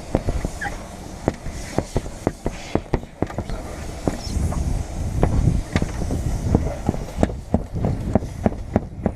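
Irregular sharp knocks and clicks as a long windshield-removal blade is struck and worked through the urethane bead at the windshield's corner, cutting the glass free, over a low rumble.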